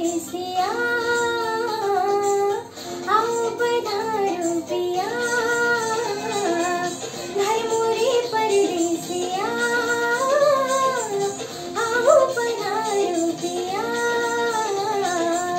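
A girl singing a Hindi film song, in phrases of about two seconds made of long held notes ornamented with slides and turns, with short breaks between phrases.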